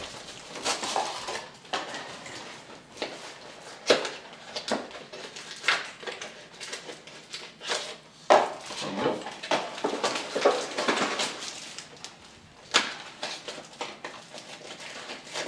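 Plastic trading-card pack wrappers crinkling and being torn open by hand, with cards rustling and irregular sharp clicks and taps.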